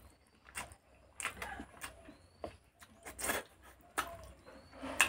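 Close-miked mouth sounds of eating curry-soaked rice by hand: wet chewing, lip smacks and clicks, coming irregularly in short clusters, the loudest near the end.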